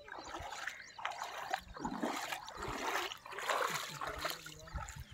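Legs wading through shallow water, each stride sloshing and splashing, about once a second.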